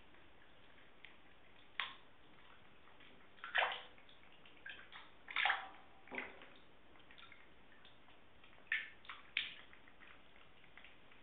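Cats wading in shallow bathwater, their paws making several short splashes and sloshes with quiet gaps between, the loudest about three and a half and five and a half seconds in.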